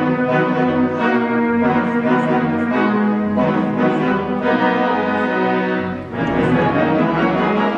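Orchestral-sounding music: held chords that change every second or so, with a brief dip and change of texture about six seconds in.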